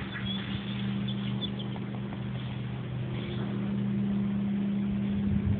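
A vehicle's engine running with a steady low hum while driving slowly, getting a little louder toward the end.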